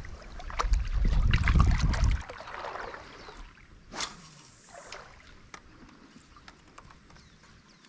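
Water splashing and trickling beside a small boat, with scattered small knocks and clicks as a freshly caught fish is brought in. A low rumble fills the first two seconds, and there is one louder sudden noise about four seconds in.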